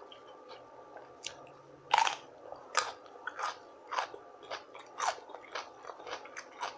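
A person biting into crunchy food, then chewing it with a crunch about twice a second.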